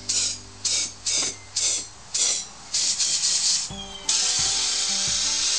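Compressed air hissing from an air blow gun through clear tubing into a folded inner-tube bladder, inflating it. The air comes in about seven short blasts, then a steady stream from about four seconds in, over a steady low hum.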